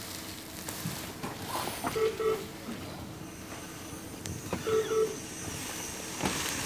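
Medical monitor alarm sounding a double beep that repeats about every two and a half seconds, with short scattered clicks and rustles between the beeps.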